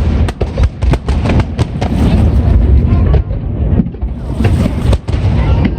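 Aerial fireworks display: shells bursting in rapid succession, many sharp bangs over a continuous low rumble.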